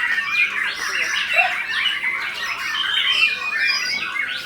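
Several white-rumped shamas (murai batu) singing at once: a dense, unbroken stream of overlapping rapid whistles, chirps and trills.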